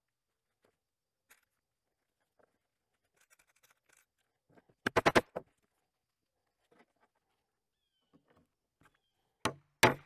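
Hammer striking a grommet setting tool to set a brass grommet through canvas. A quick cluster of sharp metal blows comes about halfway through, and a few more separate strikes come near the end.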